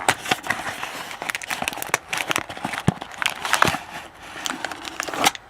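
A cardboard trading-card box being opened by hand: irregular crinkling, tearing and crackling of the packaging, with a sharper snap near the end.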